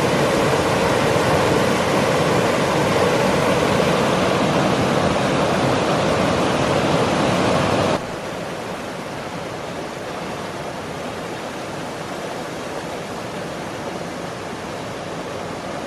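Steady rush of a river's flowing water. About halfway through it cuts abruptly to a quieter, duller rush.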